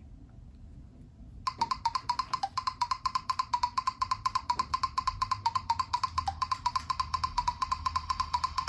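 A Nokia 808 PureView ringtone starting about a second and a half in: a fast, even run of percussive strikes with a high repeated note over it, and a low beat joining about halfway through.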